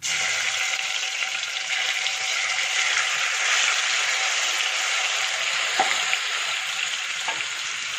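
Marinated prawns frying in hot coconut oil in a pan: a steady, loud sizzle that starts suddenly.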